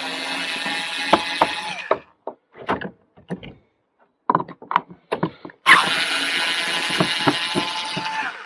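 A handheld power tool running in two bursts of about two and three seconds, undoing fasteners, with clicks and knocks of handling between them.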